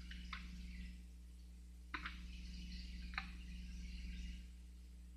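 Faint rustling of a folded paper leaflet being handled, with a few sharp crackles (about a third of a second in, at two seconds, and after three seconds), over a steady low hum.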